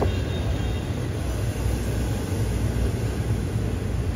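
Steady low rumble over the general noise of a busy street, with no single event standing out.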